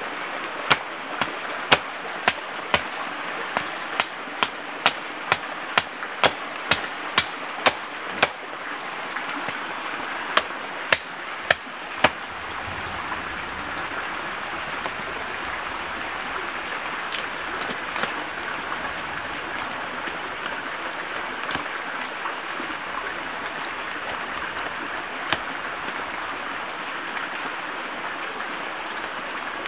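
A river flowing steadily, with a run of sharp knocks, about two a second, through the first twelve seconds, then only a few scattered knocks.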